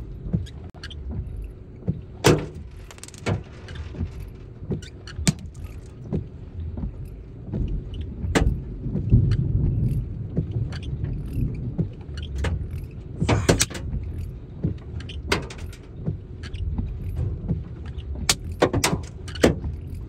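Storm wind buffeting the microphone as an uneven low rumble that swells about nine seconds in, with scattered sharp clicks and taps about once a second.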